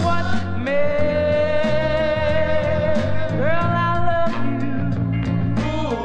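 Music: a song with a singer holding long notes over a backing band with a steady beat.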